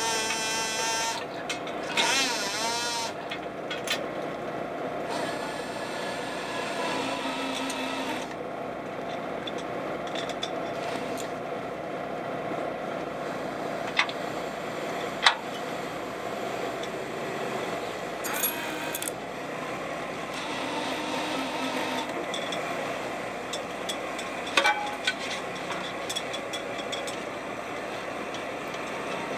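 Steady hum of a seine fishing boat's engine and deck machinery running, with a few sharp knocks through the middle and near the end and brief high wavering squeals in the first few seconds.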